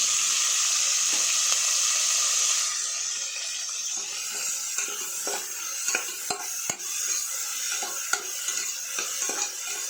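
Chopped onions, green chillies, curry leaves and tomato sizzling in hot oil in a pressure cooker while being stirred, the spoon scraping and knocking against the pot. The sizzle is loudest for the first couple of seconds, then eases and leaves frequent clicks of the spoon.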